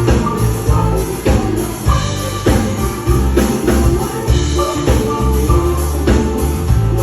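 Live rock band playing a song with a singer, with a steady beat of bass, drums and cymbals.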